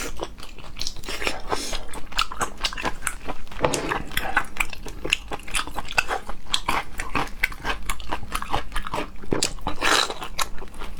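Close-miked mouth sounds of someone eating octopus: wet chewing and smacking, with many quick, irregular clicks and crunches.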